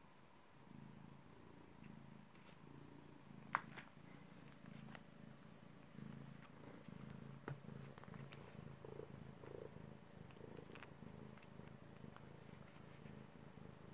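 Domestic cat purring faintly and steadily, with a few sharp clicks, the loudest about three and a half seconds in.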